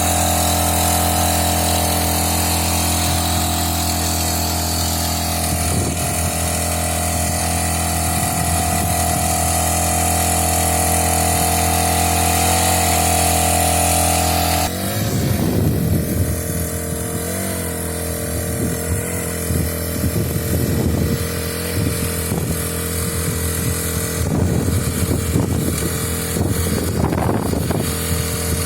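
Honda GX35 small four-stroke engine on a rice-paddy power weeder running at a steady high speed. About halfway through, its speed drops suddenly, and then the revs rise and fall unevenly.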